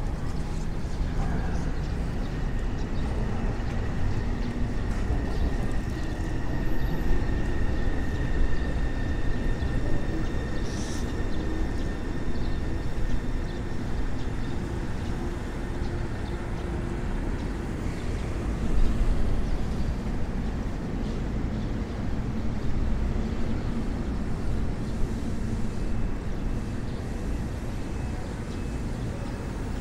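Steady low rumble of passing traffic, swelling now and then, with a faint thin tone held for several seconds in the first third.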